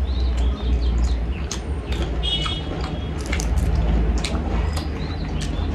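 Close-up eating sounds: chewing and lip smacks heard as a scatter of short wet clicks, over a steady low hum, with a brief high chirp about halfway through.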